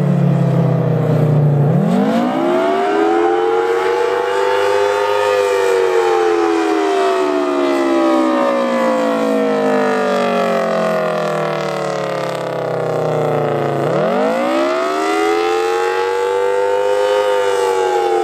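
Federal Signal Thunderbolt 1000T 4/5-port siren sounding the Attack signal. Its chord-like tone winds up quickly, then slowly falls away over several seconds, twice.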